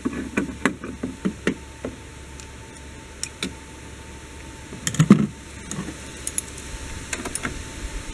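Irregular clicks and knocks of hand tools and parts being handled in a car's engine bay, loudest in a short cluster about five seconds in.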